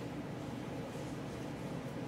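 Steady low hum of room noise, with faint rustling of a cap and puffer jacket being handled in the second half.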